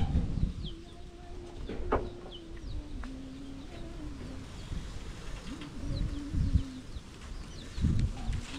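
Small birds chirping in short, high, falling notes over a low, drawn-out call that steps down in pitch and comes back twice, with a few dull thumps near the end.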